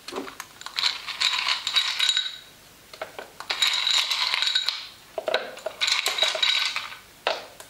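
Ice cubes clattering and rattling as they are tipped into a Thermomix TM5's stainless-steel mixing bowl, in three bursts of a second or more each.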